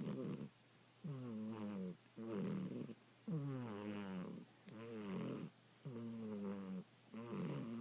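Domestic shorthair cat snoring in her sleep, with a snore on each breath. A longer droning snore that drops in pitch is followed by a shorter, rougher one, about three breaths in all.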